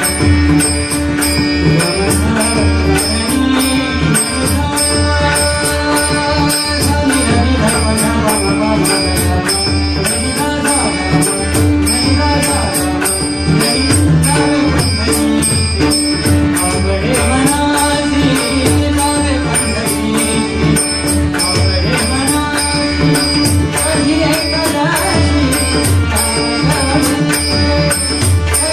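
Marathi devotional abhang (bhajan) music, with a steady held drone under a gliding melody and a pulsing percussion beat.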